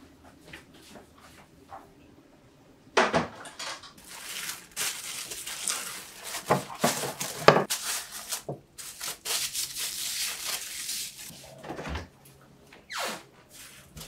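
Plastic cling wrap being pulled from its box and stretched and pressed over a bowl, crinkling and crackling with many sharp snaps, starting about three seconds in after a few faint clicks.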